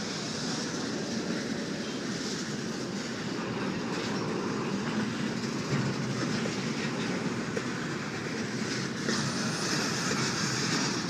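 Freight train's double-stack intermodal well cars rolling past, steel wheels running on the rail with a steady rumble and rattle. The higher-pitched rail noise grows louder about nine seconds in.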